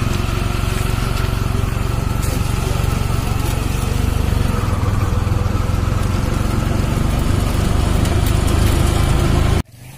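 A small engine running steadily with a low hum, cutting off suddenly near the end.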